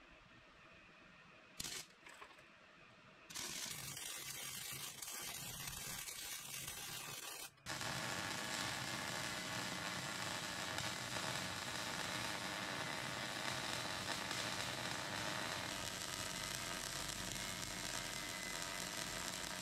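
MIG welding arc crackling and sizzling on steel. A short weld starts about three seconds in, stops briefly near eight seconds, then a long continuous bead runs steadily to the end.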